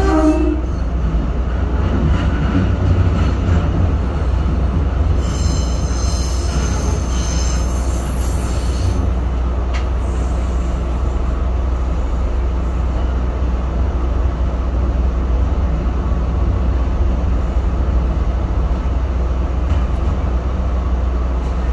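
Local train running on the rails with a steady low rumble. Its wheels squeal high-pitched for a few seconds about a quarter of the way in, with a single sharp click shortly after.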